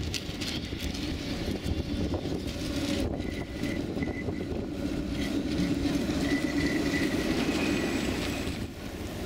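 Articulated tram passing on snowy track: a steady low rumble of wheels and running gear, with a faint high whine that comes in twice.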